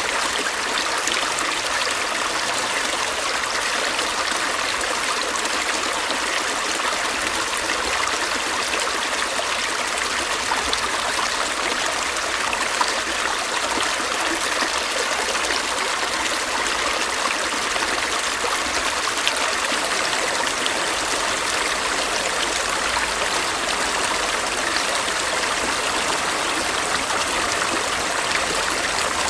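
A small stream running over rocks, a steady splashing and trickling.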